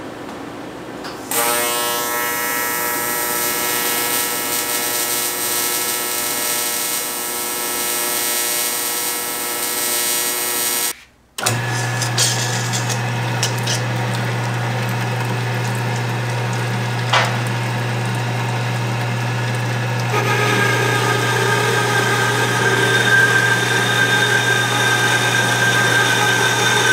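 AC TIG welding arc on aluminum buzzing steadily, starting suddenly about a second in and cutting off near the middle. Then a horizontal band saw with coolant runs with a low steady hum, cutting aluminum rectangular tube, its sound changing a little over halfway through.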